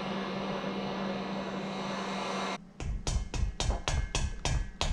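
A small electric motor runs steadily with a hum for about two and a half seconds and stops. It is followed by a quick series of about nine sharp metallic knocks and clicks on the workbench, about four a second.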